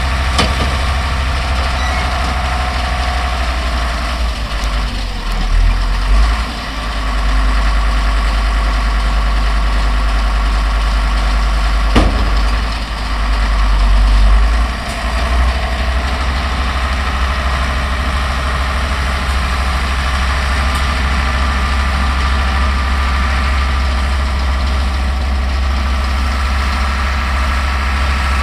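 Older Deutz tractor's diesel engine running steadily under load as it pulls and drives a round baler, with one sharp click about twelve seconds in.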